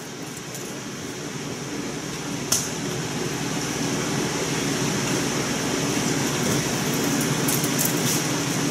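Steady classroom room tone: a fan-like hum and hiss, slowly growing louder, with a sharp click about two and a half seconds in and a few faint clicks near the end.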